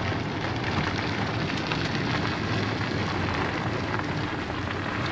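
Steady wind rush on the microphone with road noise, riding in an open-sided tour shuttle moving along a gravel road.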